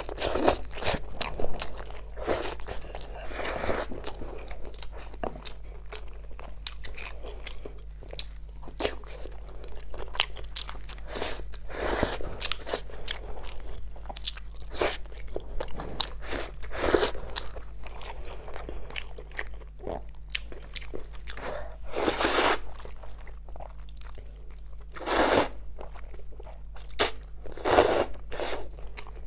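Close-miked eating: a person chewing and biting into braised meat with wet clicks and smacks. Near the end come a few louder hissy slurps of noodles.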